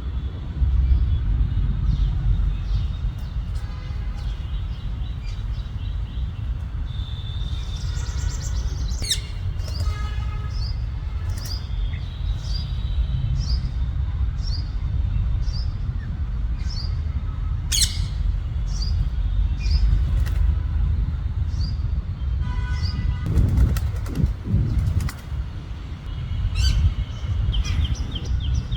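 A parrot giving short, high chirps, repeated about once a second through the middle stretch, over a steady low rumble.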